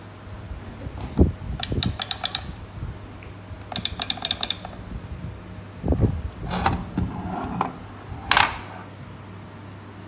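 Pedals of a two-pedal plastic foot switch pressed by hand, the built-in micro switches clicking in quick runs of several clicks, with a couple of dull thumps as the pedals are pushed down.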